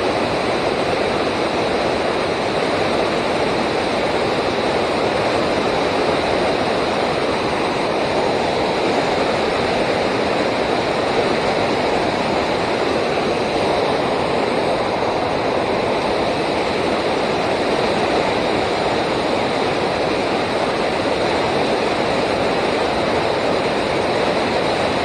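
Steady rush of fast-flowing river water, an even hiss that holds level throughout.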